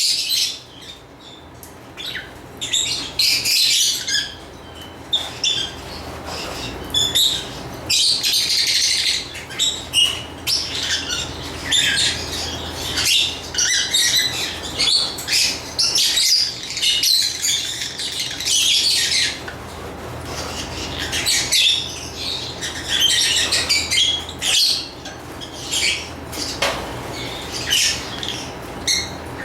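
Lovebirds chirping in a rapid, busy stream of high-pitched calls that overlap and break off irregularly, with a brief lull about a second in.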